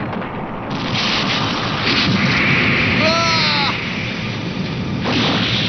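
Anime battle sound effects: noisy blasts and rushing impacts, loud throughout, with a short pitched sound that bends and falls about three seconds in and a fresh blast near the end.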